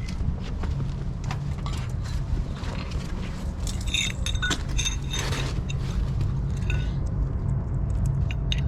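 Metal Red Head wedge anchors clinking and jingling as they are handled, with a cluster of sharp, ringing clinks about four to five seconds in, over a steady low rumble.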